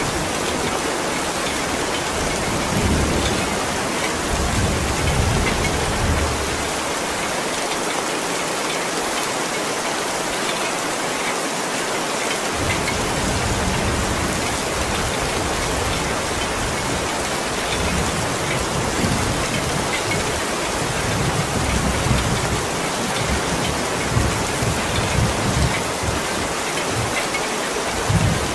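Heavy, dense rain falling steadily. Low rumbles come and go beneath it.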